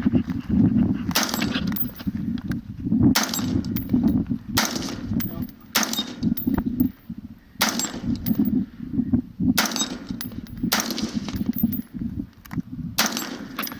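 Gunshots fired at steel targets, about eight shots one every second or two, each followed by the clang and faint ring of the struck steel plate.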